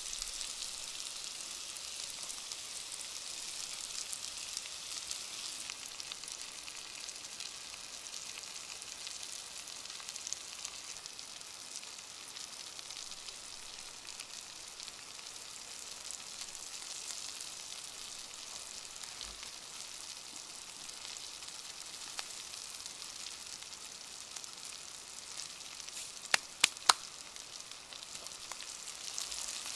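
Vegetables frying in a pan over campfire embers, a steady sizzle. Three sharp clicks come close together near the end.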